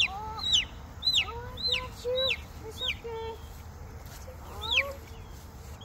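Young chicken peeping loudly over and over in distress as it is grabbed and held: high calls, each falling in pitch, about two a second, breaking off around three seconds in with one more call near the end. Fainter, lower bird calls sound underneath.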